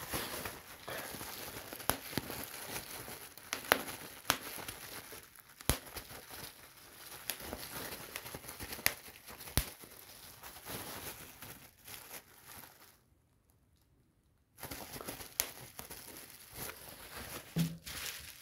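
Plastic bubble wrap being handled and crinkled, with several sharp pops of single bubbles a second or two apart. The sound drops out briefly about three-quarters of the way through.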